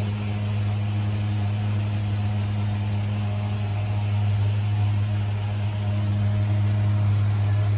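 Steady low machine drone: a deep, even hum with a second tone an octave above it, running without change.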